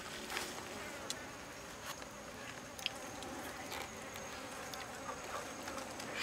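Insects buzzing steadily, with a thin high steady tone and a few faint scattered clicks.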